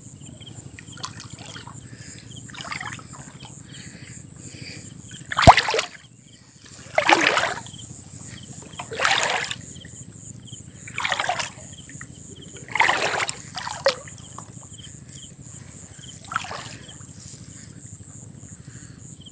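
Water splashing and dripping in short bursts, about one every two seconds, as a wet monofilament gill net is hauled up out of the water hand over hand. The loudest splash comes about five and a half seconds in and starts with a sharp knock.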